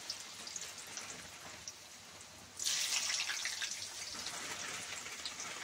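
Chilled potato sticks deep-frying in hot oil in a metal kadai: steady sizzling and bubbling. About two and a half seconds in, the sizzle jumps sharply louder as more cold sticks go into the oil, then slowly dies down.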